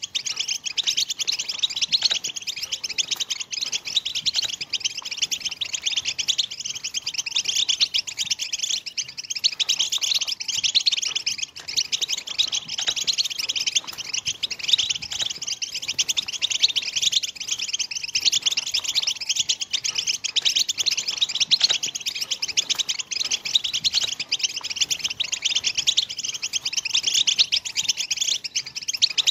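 European goldfinches giving their "betbeta" chatter: fast, dense, high-pitched twittering with no break. Keepers play this excited call to set silent or late male goldfinches singing and courting.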